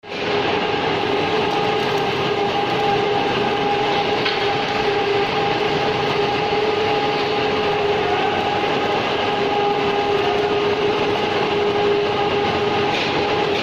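A robotic MIG welding arc on steel pipe, crackling and hissing steadily under a constant two-note electrical hum.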